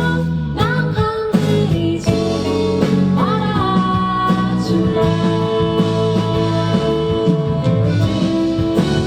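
Live band music led by guitar, with a woman singing a melody over it.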